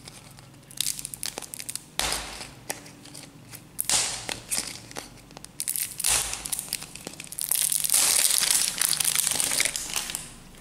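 Thin printed plastic wrapper being crinkled, torn and peeled off a plastic surprise egg by hand. The crinkling comes in fits and starts, then runs longer and louder near the end.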